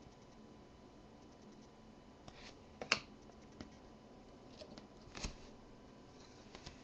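Trading cards being handled on a desk: a few faint taps and scrapes as cards are laid down and slid on a small stack, the loudest click about three seconds in and another a little after five seconds.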